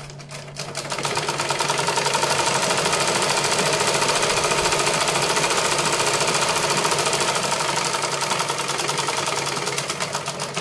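Usha sewing machine running steadily and stitching a seam through the fabric: a rapid, even clatter of the needle mechanism that picks up speed in the first second or so and slows near the end.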